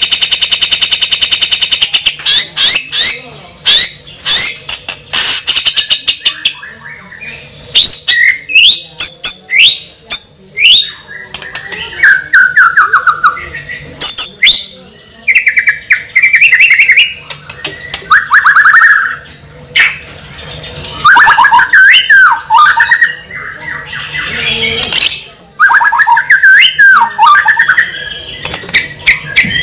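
A bird squawking and calling loudly. It starts with a rapid rattling squawk, then gives a long run of varied calls with short gaps: sharp clicks, rising and falling whistles and warbling chirps.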